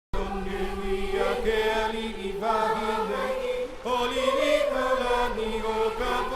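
Chanting voices holding long, drawn-out notes that slide slowly from one pitch to another.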